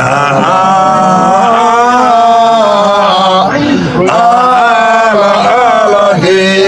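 Two men singing a Hyolmo (Yolmo) folk song together in long, held, wavering notes, with a short break for breath about three and a half seconds in.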